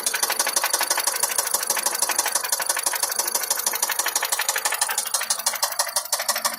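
Vehicle engine running steadily with a rapid, even knocking, several knocks a second: the knocking engine that the owner is showing.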